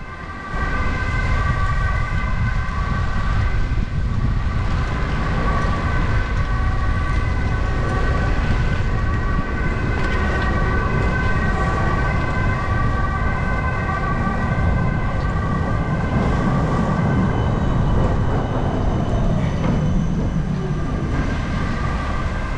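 Wind rumbling on the microphone of a moving bicycle, with a steady high whine of several tones held unchanged throughout.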